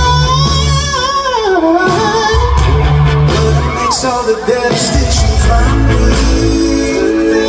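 Live pop band playing: a male lead singer sings a melody with wavering, sliding notes over drums, electric guitar and a heavy low end.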